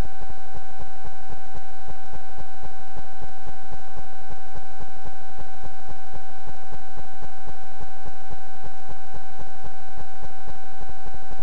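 Electronic self-noise of a night-vision trail camera's recording: a steady high whine with a fainter overtone, over hiss and a fast, continuous crackle of ticks.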